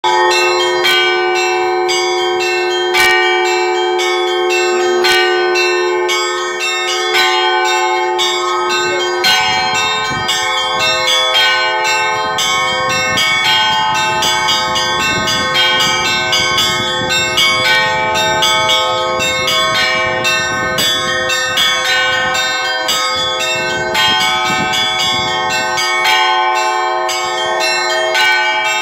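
Church bells ringing: several bells of different pitches struck in quick, overlapping strokes, their tones ringing on between strikes. A low rumble of noise sits beneath the bells through the middle stretch.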